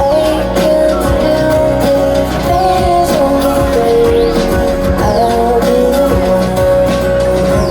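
Live pop music: a singer's voice over sustained, held tones.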